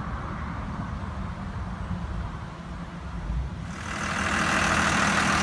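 Bulldozer's diesel engine idling steadily, with a louder rushing noise coming in about four seconds in.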